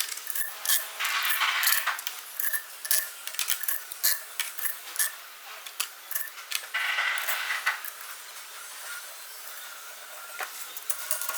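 Hand work on metal parts: irregular clinks and scrapes, with two longer rasping strokes, one about a second in and one about seven seconds in.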